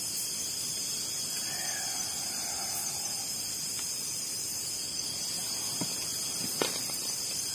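Steady high-pitched chorus of night insects, with two faint clicks near the end.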